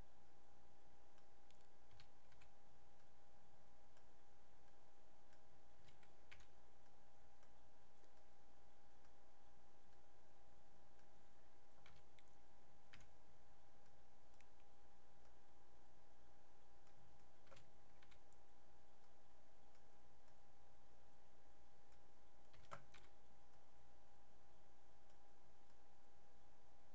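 Scattered clicks of a computer mouse and keyboard, a few seconds apart, while vertices are selected and moved in 3D modelling software, over a faint steady hum.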